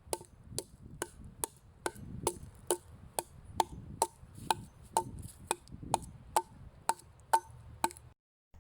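Axe chopping into a dry pine log, hewing out a groove: steady blows about two a second, each a sharp knock with a short ring, which cut off suddenly near the end.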